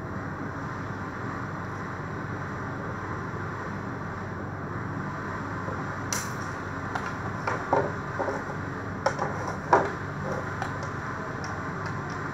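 Screwdriver work on a wooden switch board: a run of sharp clicks and taps in the second half, over a steady background hum.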